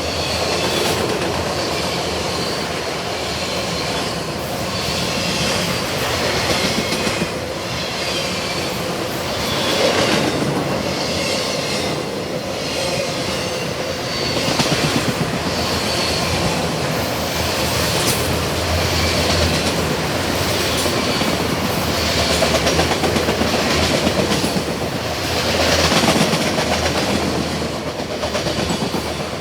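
Long freight train of autorack cars rolling past: a steady rumble of wheels on rail with rhythmic clacking over the rail joints and a high wheel squeal that comes and goes.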